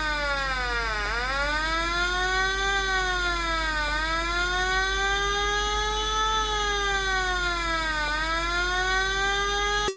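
DIY electronic siren circuit sounding a slow wail: a buzzy tone that glides up and down every three to four seconds, dipping sharply at each low point. It cuts off abruptly at the very end.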